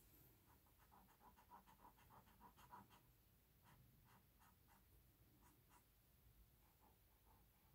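Faint, quick scratching strokes of a small hand-held tool worked over the surface of a painted wooden sign, in two short runs with a few scattered ticks after.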